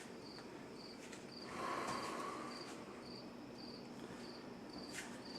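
A cricket chirping steadily, about two short high chirps a second, faint, with a brief faint swell of noise about two seconds in.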